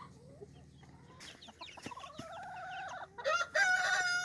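Chickens clucking, then a rooster crowing near the end: one long held crow that is the loudest sound.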